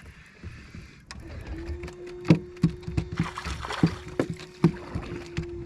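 A just-landed bass flopping on the boat, making irregular sharp knocks, about seven of them over three seconds, over a steady electric hum that starts about a second and a half in.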